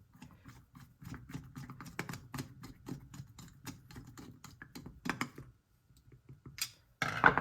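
Rapid light clicks and taps of small metal carburetor parts being handled and fitted as the carburetor is reassembled, several a second for about five seconds. A brief pause, then a louder scrape near the end.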